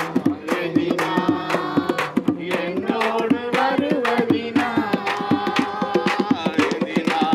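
Group singing a Tamil song to hand drums, a frame drum struck with the hand, with hand clapping keeping a fast, steady beat.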